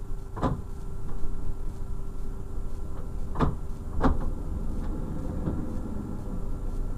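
DB class 628 diesel railcar running slowly, its engine a steady drone, with three sharp knocks from the wheels on the track, the first about half a second in and two close together around three and a half and four seconds.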